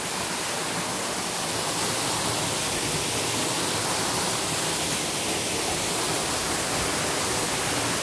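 Waterfall running: a steady, even rush of falling water with no change in level.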